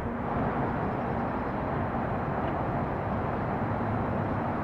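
Steady road noise of a moving car: a low hum under an even rush that neither rises nor falls.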